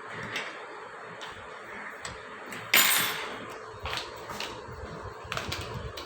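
Containers and utensils being handled on a table during drink-making: a few light clicks and knocks, the loudest a sharp knock about three seconds in.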